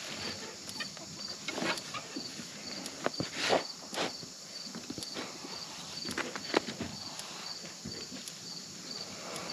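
A garden digging fork's steel tines stabbing into and turning over dirt, with irregular crunches and knocks of soil clods and dry vines being thrown. Behind it, insects chirp in a steady, evenly pulsing rhythm.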